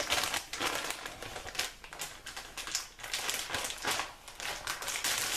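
Plastic bag of shredded cheese crinkling and rustling as it is handled and shaken out. It comes as uneven runs of quick crackles with short pauses.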